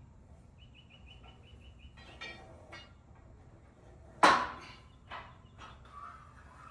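Sharp knocks of hardware being handled during a Smith machine frame assembly: one loud knock about four seconds in, with a few lighter knocks after it. Before that, a fast run of short high chirps lasts about a second and a half.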